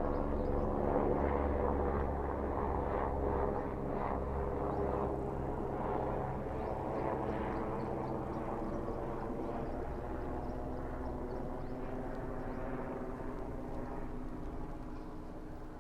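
A helicopter droning overhead, a steady low pitched hum that is loudest about a second in and then slowly fades.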